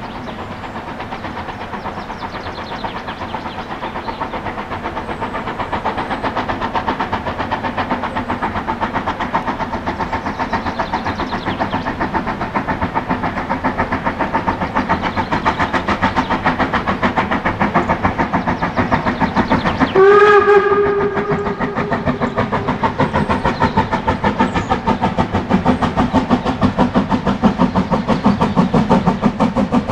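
Narrow-gauge steam locomotive working a train, its exhaust beats in a steady rhythm growing louder as it approaches. About two-thirds of the way through it gives one sharp whistle blast that fades out over a couple of seconds.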